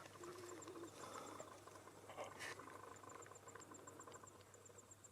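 Near silence with faint insect chirping: a steady run of high, evenly spaced ticks, about five a second, and a faint click about two seconds in.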